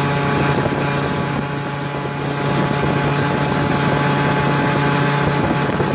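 Modified 1995 Piaggio Free 50 scooter's small two-stroke single-cylinder engine held at high revs at full speed, a steady drone that keeps one pitch.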